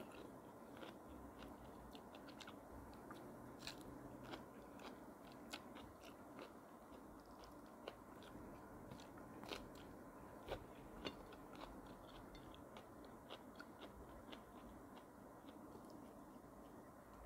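A person eating by hand, chewing fish and leafy greens close to the microphone: faint chewing with many small sharp mouth clicks and smacks, several a second.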